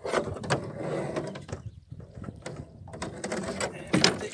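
Wire-mesh fish traps rattling and knocking as they are handled in a rowing boat, in irregular metallic clatters, with a louder knock about four seconds in as a trap is lifted.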